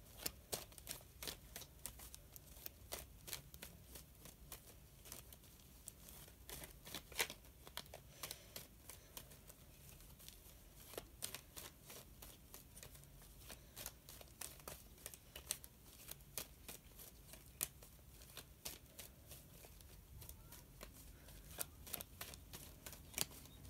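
Tarot cards being shuffled by hand: faint, irregular clicks and flicks of cards against each other, several a second.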